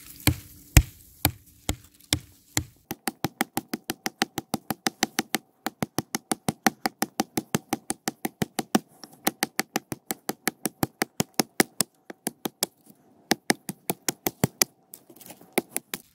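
A Sami knife's blade chopping repeatedly into the base of a thin birch stem, each blow a sharp knock into the wood. The chops come about twice a second at first, then speed up to a fast steady run of about four a second, with a few brief pauses.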